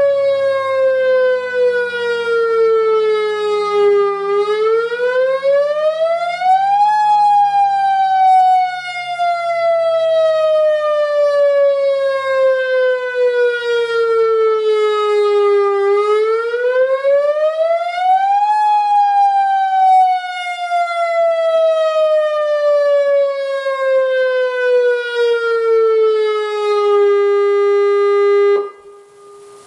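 Federal Signal Modulator 6048 electronic warning siren sounding the wail tone of a tornado warning: a slow rise and fall in pitch, twice, then a steady low note near the end that cuts off abruptly. A fainter, lower siren tone fades away in the first few seconds.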